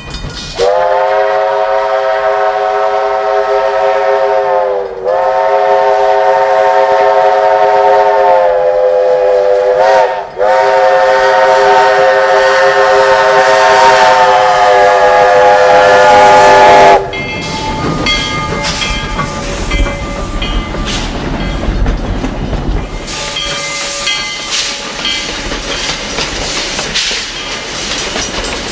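Southern Pacific 18, a narrow-gauge steam locomotive, sounds its chime whistle for a grade crossing: two long blasts, a brief one, then a long blast of about seven seconds. The whistle then stops and the locomotive and its coaches roll past with rail clatter and a bell ringing.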